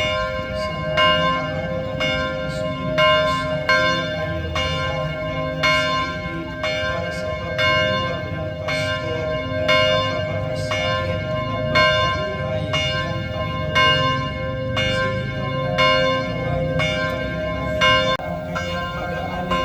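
Church bells being rung, struck about once a second, each stroke ringing on into the next.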